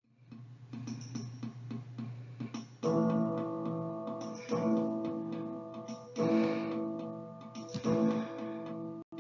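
Background music on acoustic guitar: soft picked notes over a low held note, then full chords struck about every second and a half from about three seconds in. It cuts off suddenly near the end.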